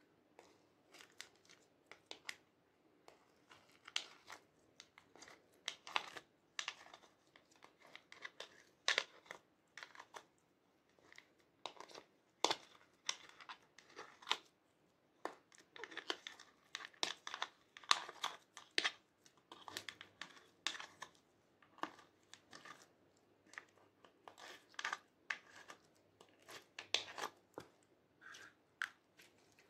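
Thick yellow slime being peeled and pulled out of a plastic ice cube tray by hand: an irregular run of short, sticky crackles and pops.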